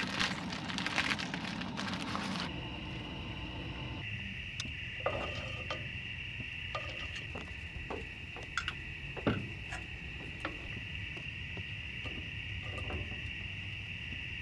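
A steady, high insect trill, like crickets, runs under the cooking. Metal utensils clink against a saucepan now and then. It opens with about two seconds of rushing, splashing noise as something is tipped into a pot of boiling water.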